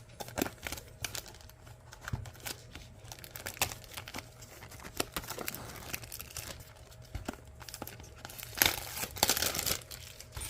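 Plastic shrink-wrap on a trading-card hobby box being torn and crumpled by hand: a run of crinkles and small tearing sounds, with a louder stretch of tearing near the end.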